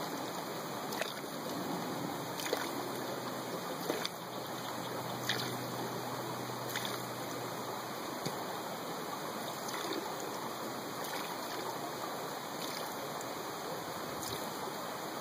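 Stream water running steadily, with faint light clicks about every second and a half.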